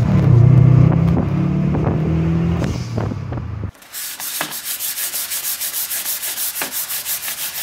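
A loud low drone for about the first three and a half seconds, cutting off suddenly. Then dry hand sanding of a Volkswagen Rabbit Mk1's black-painted fender with 320-grit sandpaper, quick back-and-forth rubbing strokes at about four a second.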